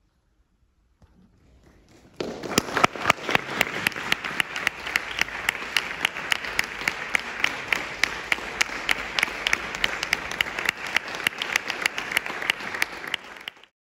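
Audience applauding. It begins faintly and breaks out fully about two seconds in, with sharp single claps close by standing out from the mass, and cuts off suddenly near the end.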